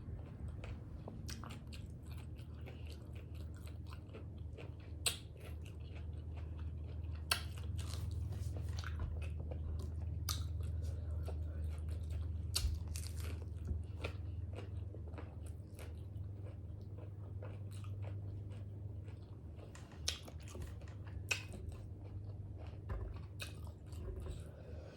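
Close-miked chewing and biting into tacos, with sharp crunches every few seconds over a steady low hum.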